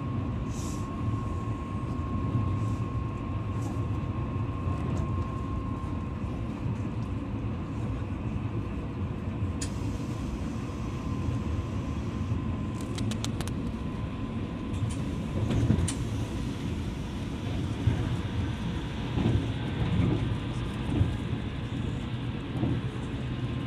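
Moving train heard from inside the carriage: a steady low rumble of wheels on the rails with a faint steady hum, and scattered short knocks and clicks of track clatter, more of them in the second half.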